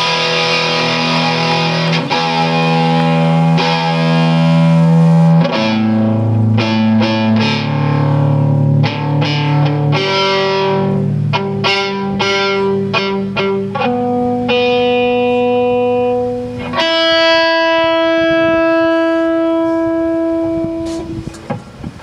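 Electric guitar through distortion and effects playing long held notes and chords that change every few seconds, with some quicker picking in the middle; the last note is held for several seconds and fades out near the end.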